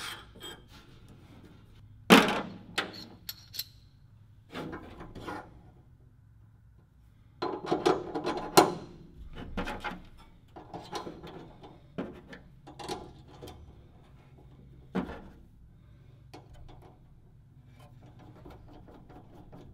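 Hands fitting a stainless washer and bolt onto the control-stick torque tube at its bracket in an aluminium airframe: scattered light clinks, knocks and rubs of small metal parts, loudest about two seconds in and around eight to nine seconds in, over a low steady hum.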